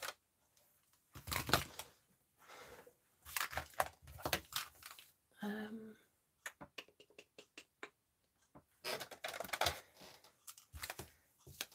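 Hands rummaging for Stampin' Blends marker pens and setting them down on the craft table: irregular bursts of rustling and plastic clatter, with a quick run of light clicks about seven seconds in.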